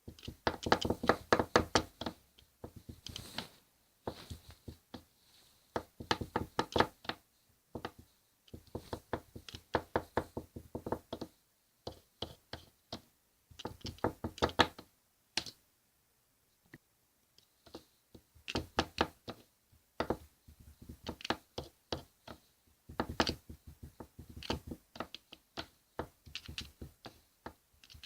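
Ice cream spatulas chopping and tapping on a cold steel plate in bursts of rapid strokes with short pauses between, the chopping that mixes strawberry and banana into rolled ice cream.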